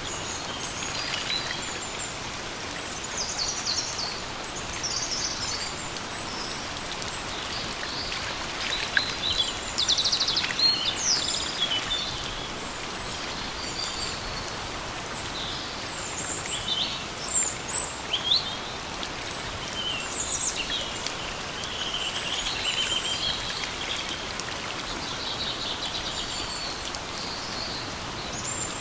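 Steady rain falling in a forest, with several birds chirping and calling over it throughout. The bird calls are loudest in brief spells about a third and two-thirds of the way through.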